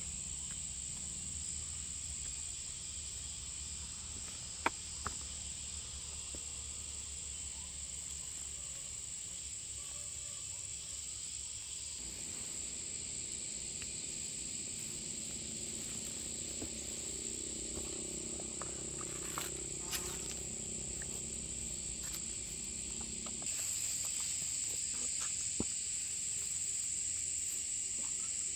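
Insects chirring in a steady, continuous high-pitched drone, with a low hum underneath and a few short clicks.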